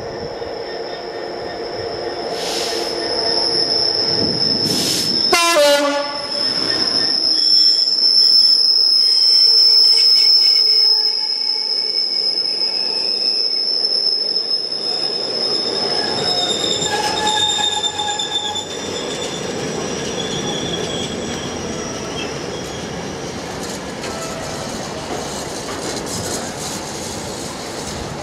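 Class 66 diesel-electric locomotive with its two-stroke EMD engine passing close by, its horn sounding briefly about five seconds in. It is followed by a long rake of empty container flat wagons rumbling and clattering over the rails, with a steady high-pitched wheel squeal.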